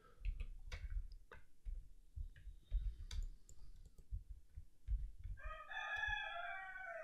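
Computer mouse clicks and keyboard key presses. About five seconds in, a drawn-out, wavering call in the background lasts about two seconds and drops in pitch at its end.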